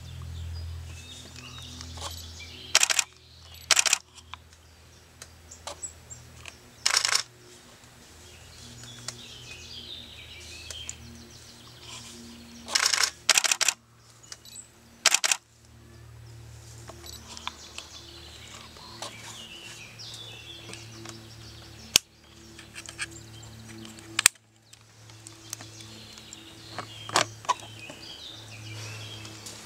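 Woodland songbirds chirping faintly and on and off, broken about seven times by loud, very short bursts of noise.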